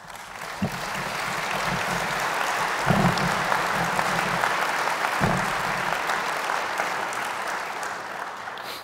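Audience applauding: the clapping builds up over the first second, holds steady, and dies away near the end, with a few dull low thumps under it.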